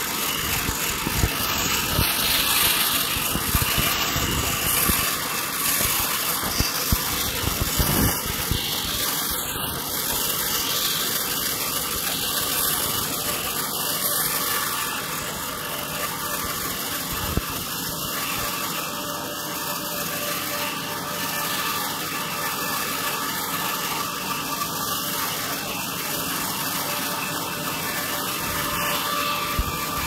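Horizontal band sawmill running steadily as its blade cuts lengthwise through a log. The sound is a continuous mechanical drone of saw and drive, a little quieter in the second half.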